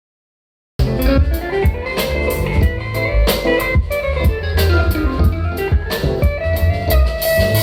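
A band playing music with guitar and a drum kit, starting suddenly about a second in, with a steady beat; a sound check through the sound system.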